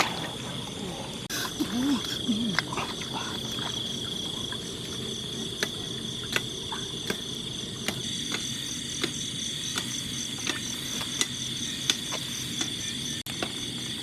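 Night-time insect chorus, a steady high-pitched trilling that never lets up, with scattered light clicks and knocks over it.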